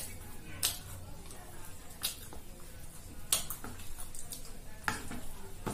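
Close-up eating sounds of luchi and egg curry: a sharp smacking click from mouth and food about every second or so.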